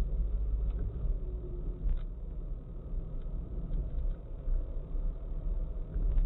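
Car driving, heard from inside the cabin: a steady low rumble of road and engine noise, with a few faint ticks, one about two seconds in and one near the end.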